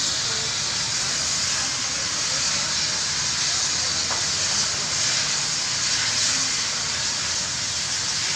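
Fire burning in a shop front after a gas cylinder explosion, heard as a steady, even hiss.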